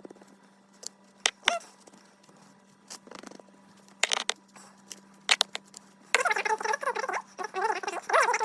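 Sharp plastic clicks and taps of a cordless vacuum's dust bin and filter being handled and cleaned of dust. From about six seconds in, a louder wavering, pitched voice-like sound bends up and down.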